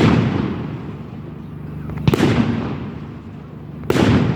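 Aerial firework shells bursting overhead: three loud bangs about two seconds apart, each trailing off in a long fading echo.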